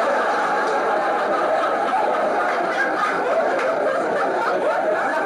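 Sitcom laugh track: a crowd of studio audience laughing, holding at a steady level.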